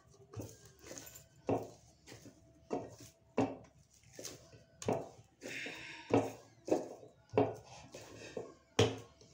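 Hands kneading a stiff flour dough in a glazed terracotta bowl: a steady run of dull thumps and knocks, about one and a half a second, as the dough is pressed and pushed against the bowl.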